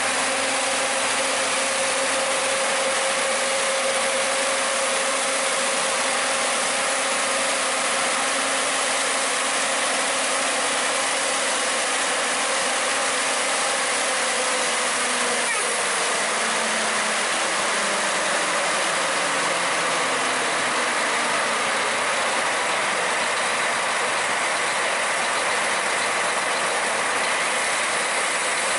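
The Mount Washington Cog Railway's M1 biodiesel locomotive is running with a steady, even mechanical noise. A faint hum fades out about halfway through, and a slow wavering in pitch follows in the second half.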